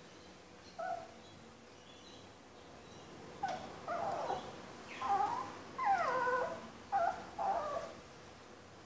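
Puppy whining and whimpering in short, high cries that bend up and down in pitch: one brief cry about a second in, then a run of about half a dozen from about three and a half to eight seconds in.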